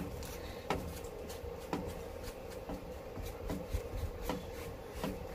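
Sponge and disposable-gloved hands wiping melted wax proofing onto a waxed canvas bag: soft, irregular rubbing and scuffing strokes with light clicks.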